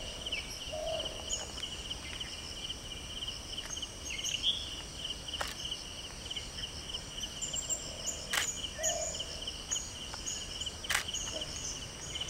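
Steady, finely pulsing chirr of insects, with scattered small bird chirps and three sharp clicks spread through.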